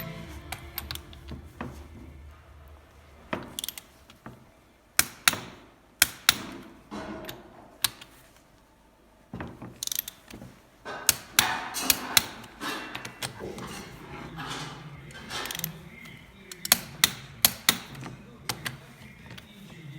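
Irregular sharp metallic clicks and knocks of hand tools and steel parts being handled during assembly of a Sauer 90M100 hydrostatic pump, with a quieter lull a little before halfway.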